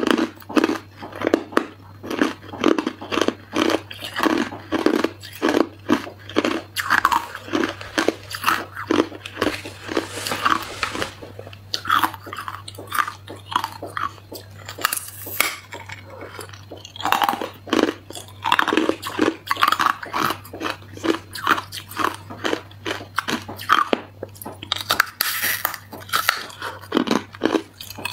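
Hard ice being bitten and chewed close to the microphone: sharp crunches, several a second, with a low steady hum underneath.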